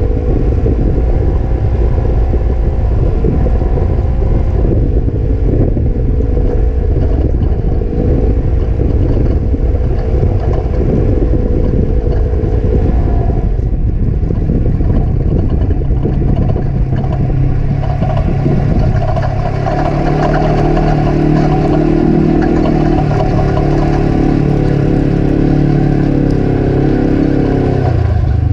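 Side-by-side UTV engine running while driving over beach sand, with heavy wind rumble on the microphone. About two-thirds of the way through, the engine note shifts lower and grows stronger.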